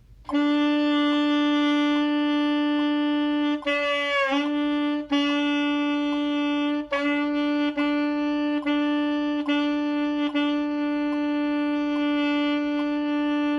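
Saxophone holding a single B repeatedly, each note tongued and re-attacked several times without changing pitch, as a beginner long-tone warm-up. There is a brief wobble in pitch about four seconds in.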